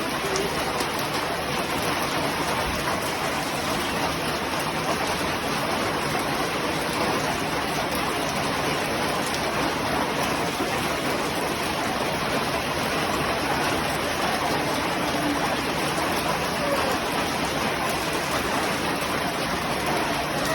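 Heavy rain pouring down, a dense, steady hiss with no let-up.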